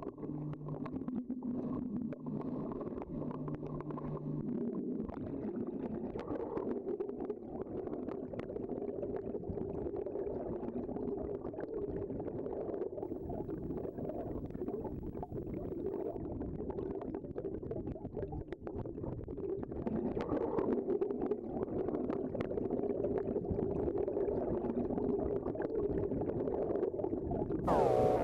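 Muffled rush of river water heard through a submerged camera, with scattered small clicks and gurgles and a low hum for the first few seconds. Music comes in right at the end.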